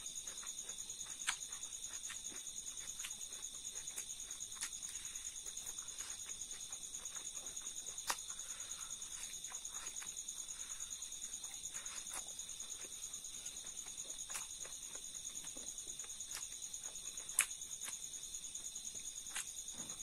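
Insects chirring steadily in a rapid pulsing rhythm, with soft eating sounds and a few sharp clicks, the loudest about a second in, about eight seconds in and near the end.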